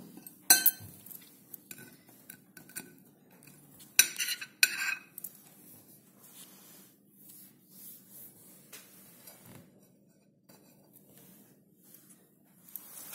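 Crockery clinking: a few sharp, ringing clinks, one about half a second in and two close together around four seconds in, with fainter light taps between.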